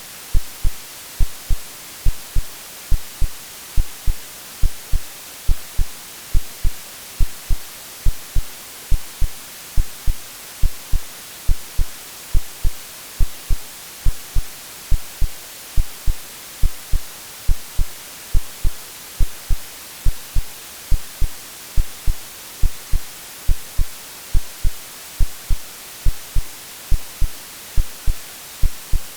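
AI-generated white noise mixed with a heartbeat sound: a steady bright hiss over low double thumps (lub-dub) repeating evenly, roughly once a second. It is meant to resemble the sound of the womb.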